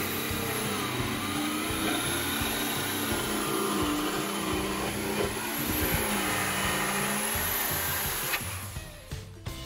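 Corded jigsaw cutting a curve through plywood. The motor's pitch wavers as the saw is steered around the curve. The saw winds down and stops near the end.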